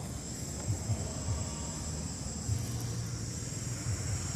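Outdoor ambience: a steady, high-pitched drone of insects such as crickets, with an uneven low rumble underneath.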